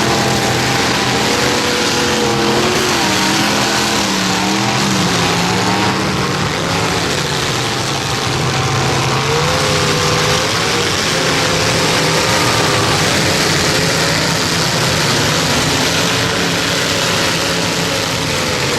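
Several demolition derby trucks' engines revving at once, their pitches wavering up and down over a loud, steady background of engine and crowd-scale noise.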